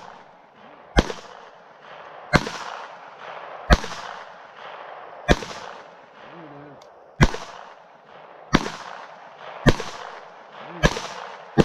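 Taurus TX22 .22 LR pistol fired at a slow, steady pace, eight single shots about one and a half seconds apart, each with a short echo.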